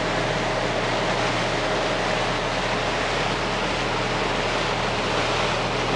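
A Cabo 45 Express sportfishing boat running under way: a steady low engine drone under an even rush of water and wind.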